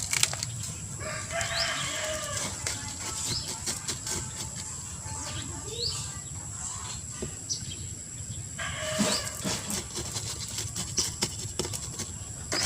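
Chickens calling in the background, two long calls about a second in and about nine seconds in, over light rustling and scraping as soil mix is added to a pot.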